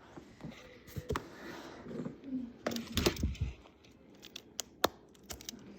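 Quiet room with a few scattered light clicks and taps from small objects being handled.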